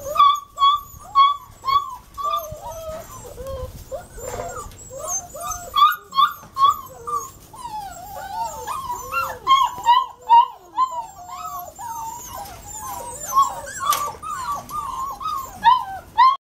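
A litter of Walker hound puppies whining and yipping, many short high calls overlapping one after another. A single sharp knock about two-thirds of the way through.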